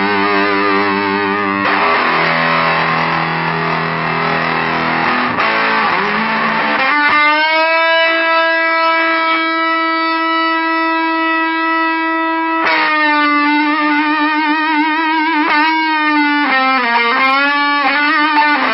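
Electric guitar played through a homemade Big Muff Triangle-style fuzz pedal, heavily distorted. Strummed chords come first, then a single note held for about five seconds with long sustain, then notes played with wide vibrato and string bends.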